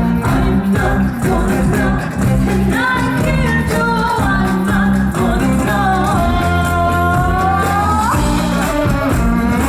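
Live band music with singing over plucked guitar and a steady bass; a long held sung note about six seconds in slides upward before breaking off.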